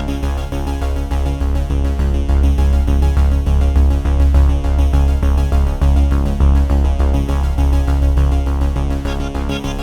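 Background music: an electronic synthesizer track with steady sustained layers and a regular pulsing bass.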